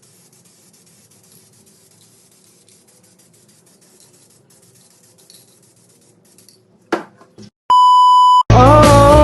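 Faint background noise, then a few clicks, then one loud, steady electronic beep lasting just under a second, followed at once by loud rock music with guitar and drums starting near the end.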